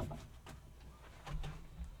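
Tools and wooden parts being handled and set down in a wooden tool chest: a few light knocks and clicks, then a duller thump a little after halfway.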